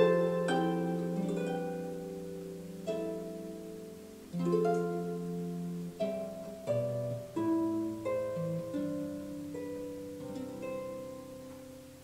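Soothing background harp music: slow plucked notes that ring and fade, dying away near the end.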